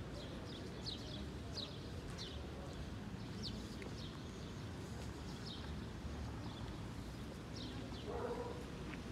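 Small birds chirping, short high downward-sliding chirps about once a second, over a steady low outdoor rumble of wind and distant traffic.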